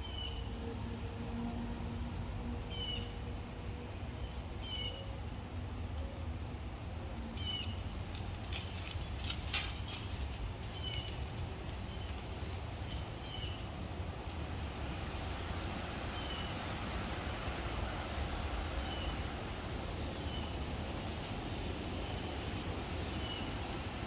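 Wind buffeting the microphone in a steady low rumble, with a short high call repeating every second or two over it.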